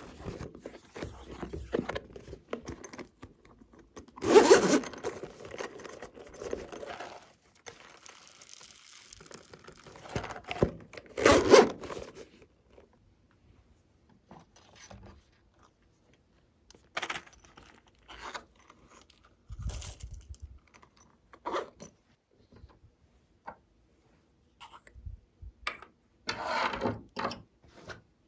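Hands working slime and handling its containers: irregular scraping and rustling, loudest about four and eleven seconds in, then scattered short clicks and knocks.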